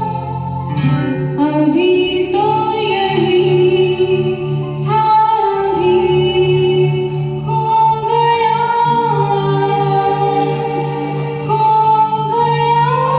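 A woman singing long held, gliding notes without clear words over the song's backing music, with a plucked guitar and a steady low accompaniment.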